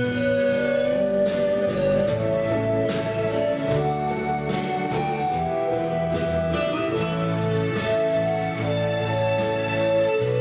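Karaoke backing track playing an instrumental interlude of a ballad, with held melody notes over a steady beat and no singing.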